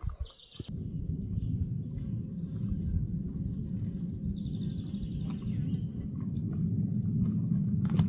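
Steady low rumble on the microphone starting about a second in, with a bird chirping faintly around the middle.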